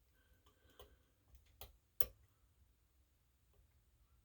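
Faint, scattered metallic clicks of a lock pick and tension wrench working the pins of a pin-tumbler challenge lock, the loudest about two seconds in.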